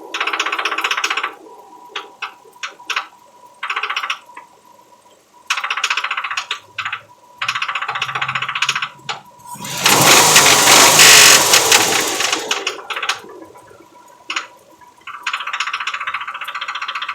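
Engine bay of a 2004 Nissan Pathfinder: intermittent bursts of rapid mechanical clatter with a few single clicks between them, and one much louder burst about ten seconds in. This is the bad knocking noise, its cause not yet known.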